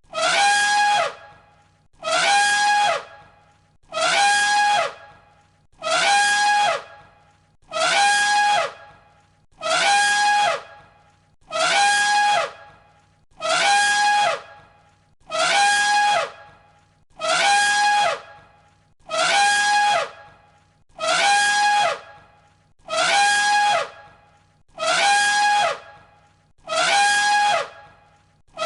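An elephant's trumpet call, the same loud, brassy blare of about a second repeated every two seconds or so, one identical call looped over and over.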